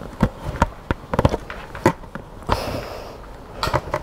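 Small metal and plastic parts clicking and knocking as a CO2 cartridge is screwed into a brass solenoid-valve fitting, with a short hiss about two and a half seconds in.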